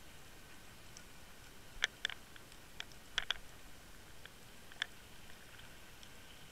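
Faint underwater sound: a handful of sharp clicks, two quick pairs about two and three seconds in and a single click near five seconds, over a faint steady hum.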